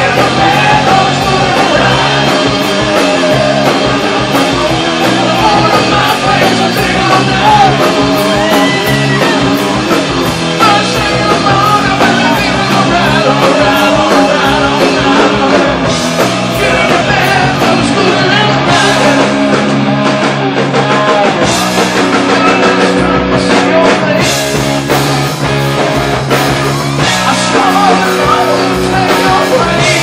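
Live hard rock band playing loud, with a male lead vocal sung over electric guitar, bass guitar and drums.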